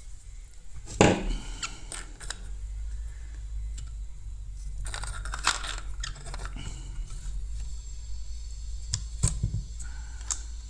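Hand-work on a smart LED bulb as its housing is pried open and the circuit board pulled free: scattered sharp plastic clicks and knocks, the loudest about a second in, with a cluster around five seconds in, over a steady low hum.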